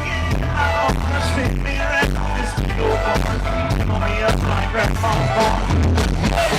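Live country-rock band music played loud, with a heavy, steady bass beat.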